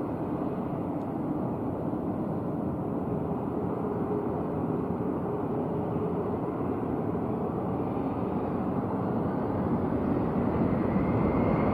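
Boeing 737 Classic's CFM56 turbofan engines running as the jet rolls slowly onto the runway, a steady engine noise. About eight seconds in, a whine starts rising in pitch and the sound grows louder as the engines spool up for the takeoff roll.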